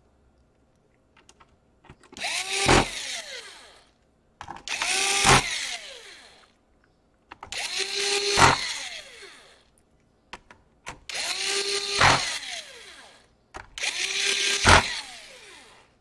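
Small cordless drill-driver running five short times, about two seconds each, driving screws into a laptop's chassis. In each run the motor's pitch drops as the screw seats, with a sharp click partway through.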